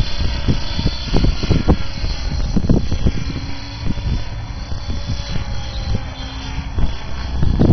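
Align T-Rex 700E electric RC helicopter flying high overhead: a faint steady hum from its rotor and electric motor, with wind buffeting the microphone in irregular low gusts.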